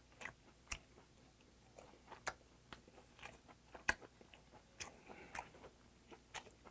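A person chewing a mouthful of grilled Patagonian toothfish with the mouth closed: soft, wet mouth clicks and smacks at an irregular pace, the loudest a little past the middle.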